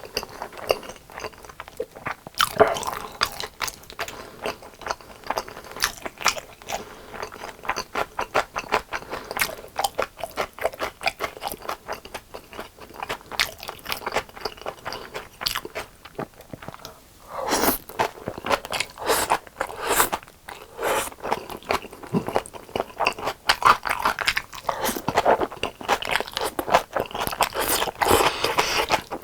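Close-miked biting and chewing of crispy fried chicken, a dense run of crackly crunches throughout, with a louder spell of crunching about 17 seconds in and heavier crunching again near the end.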